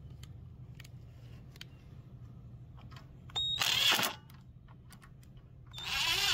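Socket driver tightening the mounting screws of the air filter base on a Tecumseh small engine. The driver runs in two short loud bursts about two and a half seconds apart.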